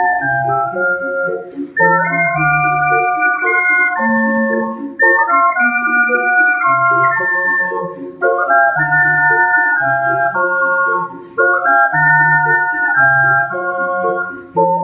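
Ensemble of ocarinas playing a piece in several-part harmony, their pure, organ-like tones over a low bass part. The music moves in phrases with short breaks about every three seconds.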